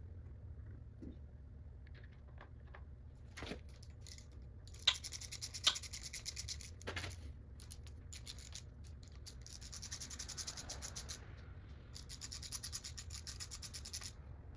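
Ratchet wrench clicking rapidly in three runs, with a few sharper single clicks around the first, as the cam gear bolts on an LS1 engine are run down.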